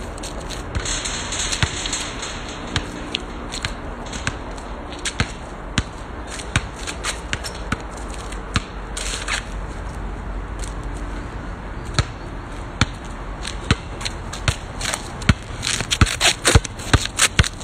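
A basketball bouncing on an asphalt court, with trainers scuffing and scraping on the surface: sharp knocks at an irregular pace, coming thicker near the end, over a steady low rumble.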